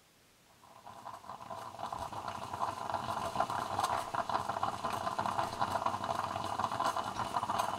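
Stovetop moka pot heating, hissing with fine crackling. The sound fades in about half a second in, builds over a couple of seconds, then holds steady.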